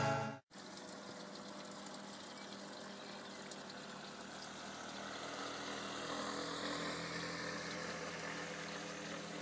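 Motorcycle running steadily with wind and road noise, heard low, swelling slightly in the middle.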